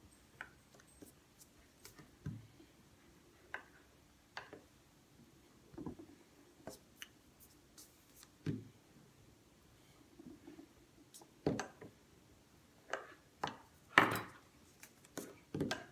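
Irregular light knocks and handling noises from a small rolling pin being rolled over fondant on a silicone baking mat and set down, with the fondant sheet being lifted off the mat. The knocks come closer together and louder near the end, the loudest about two seconds before the end.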